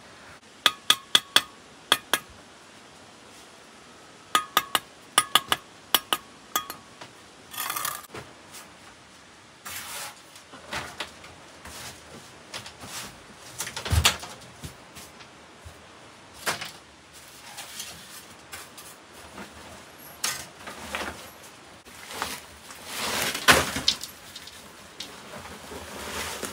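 Sharp ringing clinks of hard objects struck together, in two quick runs of about six strokes each in the first seven seconds. Scattered knocks and rustles follow, with one louder knock about halfway through.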